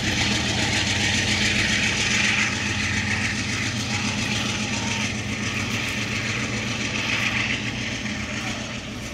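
Diesel passenger locomotive working a bilevel commuter train: a steady low engine drone with the hiss of wheels on rail over it, easing off slightly over the last few seconds as the train passes.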